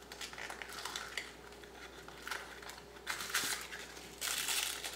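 Faint rustling and light clicking of a small cardboard toy box and doll clothes being handled and opened, with a slightly louder rustle about three seconds in and again near the end.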